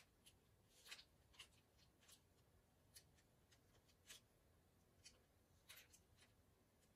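Pen tracing along a drawing's outline on paper, heard as faint, irregular scratchy strokes.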